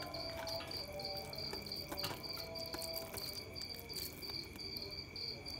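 A pit bull eating chicken and rice from a steel bowl: soft chewing and scattered clicks of teeth and muzzle against the bowl. Behind it a cricket chirps steadily, a high pulsing trill about three times a second.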